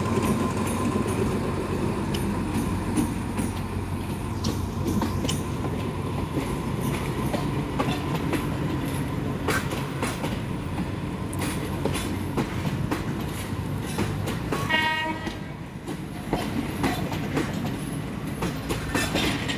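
Alsthom diesel-electric locomotive running past at low speed, its engine a steady drone, followed by passenger carriages rolling by with wheels clicking over the rail joints. A brief horn toot sounds about 15 seconds in.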